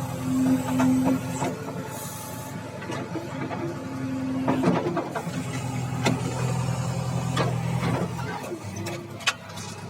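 A JCB machine's diesel engine running, its pitch stepping up and down several times as the load changes, with scattered sharp knocks.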